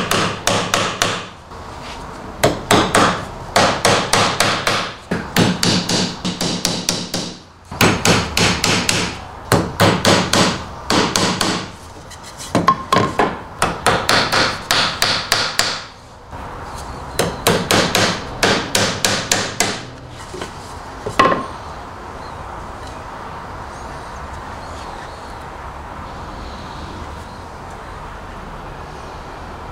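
Claw hammer driving nails part-way into a wooden board, in quick runs of sharp blows with short pauses between the runs. The hammering stops about twenty seconds in, apart from one more blow a little later.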